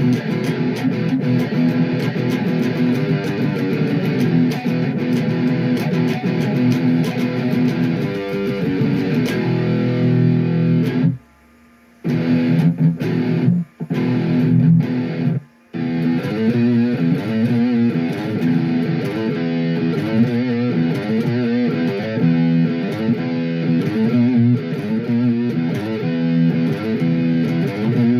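ESP H-51 electric guitar played through a Blackstar 40-watt amp's built-in distortion: sustained distorted chords, cut off for about a second around eleven seconds in and twice more briefly, then a choppier, rhythmic riff.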